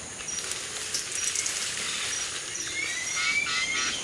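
Tropical forest ambience: a steady high insect hiss, with a few short chirping animal calls from about two and a half seconds in.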